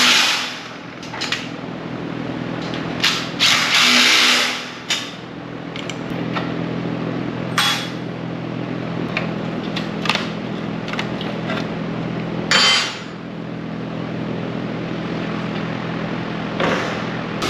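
Cordless driver running in short bursts as caster bolts are driven into a steel table leg, with clanks and knocks of a bench grinder being handled on a steel table top. A steady low hum runs underneath.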